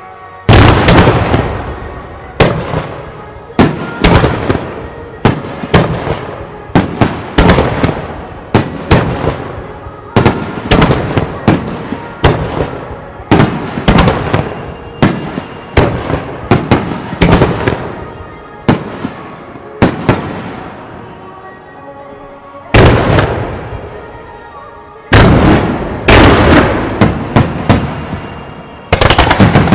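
Starmine firework shells bursting in rapid succession at close range, sharp booms following one another about every half second to a second. There is a brief lull about twenty seconds in, then a dense run of heavy bursts.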